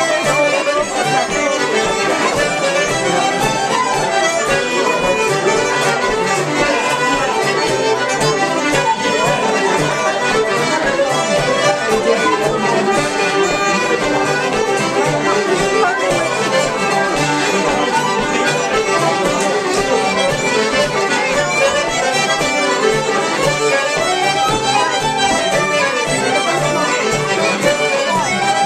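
Irish traditional dance tune played on fiddle and button accordion together, at a steady, even pace.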